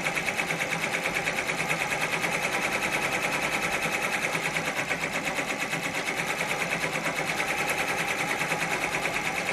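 Multi-needle embroidery machine stitching out a freestanding lace design, a steady rapid clatter of even needle strokes.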